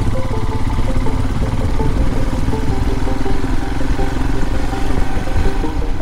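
Royal Enfield Himalayan's single-cylinder engine running at a steady cruising pace as the motorcycle rides along. Background music of short repeated notes plays over it.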